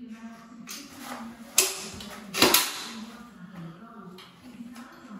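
Caulking gun clicking as its trigger is worked, squeezing silicone onto the underside of a shower tray: a sharp click about a second and a half in, then a quick double click about a second later.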